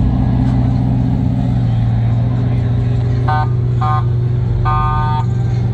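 A car engine running steadily with a deep, even rumble, and a car horn honking three times a little after halfway: two short toots, then a longer one.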